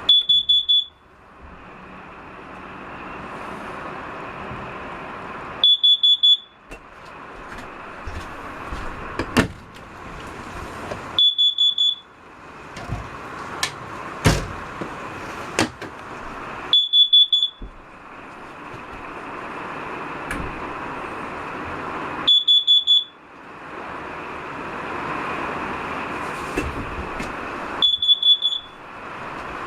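Travel trailer's carbon monoxide alarm sounding: a high-pitched beep in quick groups of four, repeated about every five and a half seconds. It was set off while the propane water heater ran in the closed-up trailer; the owner is unsure whether the alarm is faulty or the CO is real. A steady hiss and a few knocks fill the gaps between the beeps.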